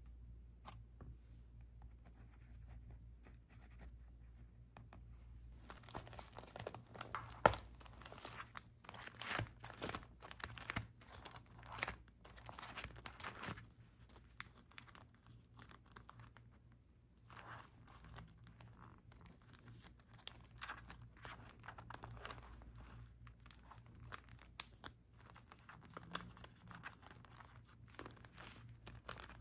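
Paper being handled by hand, torn and crinkled in runs of short rips and rustles that start about six seconds in, with one sharp tap about seven and a half seconds in.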